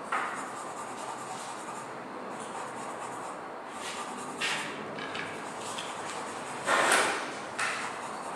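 Charcoal being drawn across paper on an easel: a few short rubbing strokes over a steady room hiss, the longest and loudest about seven seconds in.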